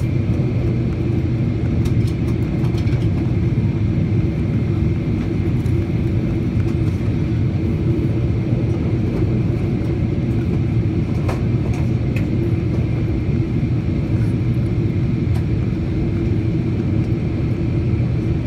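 Steady low rumble of engine and airflow noise inside the cabin of a Boeing 777-300ER on descent, with a faint steady high whine above it.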